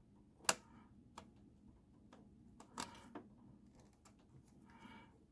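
Faint clicks and rubbing of a small plastic vacuum check valve and rubber vacuum hose being handled and pushed together. The sharpest click comes about half a second in, and a few softer ones follow.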